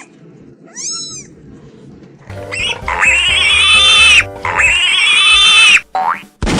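A cat meows once about a second in. Two long, loud, squealing animal cries follow, each over a second long, over background music.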